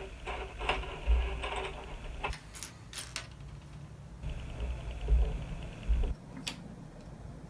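Loose plastic LEGO pieces being pushed around and picked out of a pile on a hard tabletop by hand: light clattering and rustling with scattered sharp clicks of plastic on plastic, and a few dull bumps against the table.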